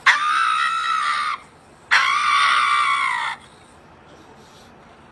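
Two long, loud screams, one after the other with a short gap, each held for about a second and a half on a high, steady pitch.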